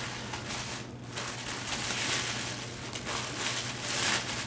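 Paper and packaging rustling and crinkling in uneven swells as a gift box is opened and its contents unwrapped.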